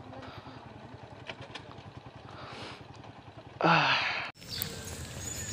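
Motorcycle engine idling low in the background. About three and a half seconds in there is a short loud burst of noise with a voice in it, then the sound breaks off abruptly at an edit.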